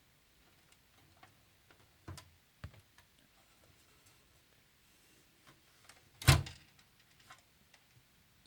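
Light clicks and taps from handling the metal PC case and power supply, with one sharp knock about six seconds in, much louder than the rest.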